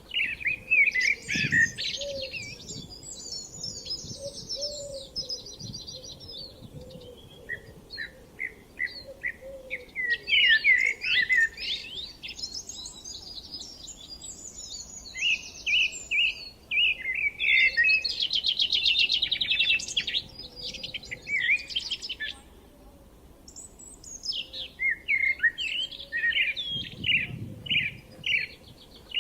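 Spring birdsong from several songbirds: repeated bursts of rapid high trills and runs of short chirps, often overlapping, with a brief lull about three quarters of the way through.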